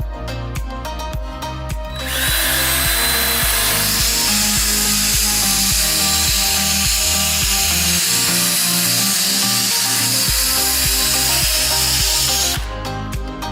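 Electric sharpening machine grinding, a steady hiss of its abrasive disc on a blade's edge from about two seconds in until about a second before the end. Background music with a steady beat plays throughout.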